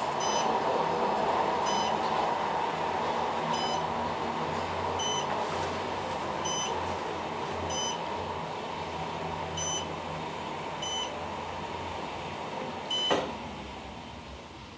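Otis Gen2 elevator car descending, heard inside the cab: a steady running hum that grows quieter toward the end. Eight short high beeps sound at intervals of about one and a half seconds, and a single sharp knock comes about thirteen seconds in.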